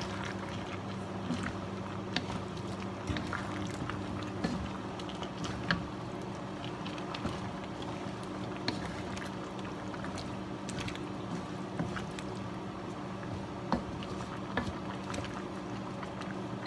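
Coconut milk with squash and string beans simmering and bubbling in a wok, with scattered light clicks and taps of a wooden spatula against the pan as it is stirred. A steady low hum runs underneath.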